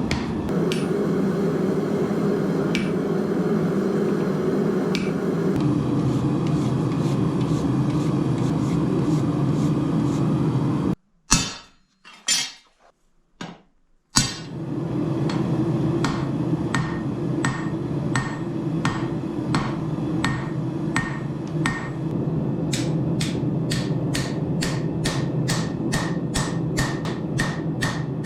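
Hand hammer striking steel on an anvil while forging a sword blade, over a steady low rushing noise. The blows come about once a second, drop to a few separate ringing strikes in a near-silent stretch of about three seconds midway, then speed up to about three a second near the end.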